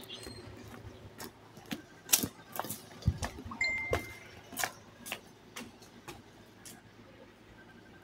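Metal clanks and clicks of a wrought-iron gate being handled and swung open, with a short high squeak about three and a half seconds in, followed by lighter clicks at about two a second that fit footsteps on paving.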